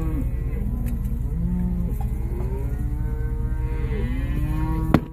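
Cattle mooing, several cows and calves calling over one another, some calls falling in pitch, over a steady low engine idle. A sharp click near the end.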